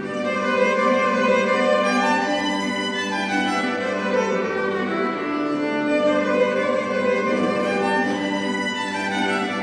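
Live string-trio music: a violin bows a melody over two acoustic guitars playing an accompaniment.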